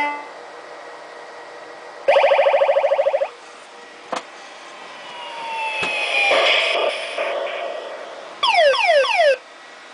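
Repaired Bally AS-2518-51 pinball sound board, with a Yamaha sound chip in place of the AY-8910, being stepped through its sound effects by an Arduino tester. It plays a short blip, then a buzzy pulsing tone for about a second, a falling tone under a noisy swell, and near the end a quick run of falling zaps.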